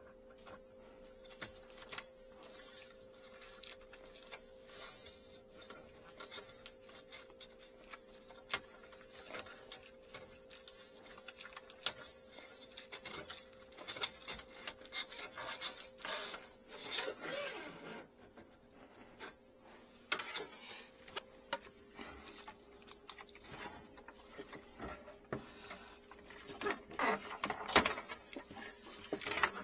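Irregular rubbing, scraping and clicking as a drain inspection-camera cable and a flexible grabber tool are worked through a clogged kitchen sink's steel drainpipe at the drain opening, loudest near the end. A faint steady hum runs underneath.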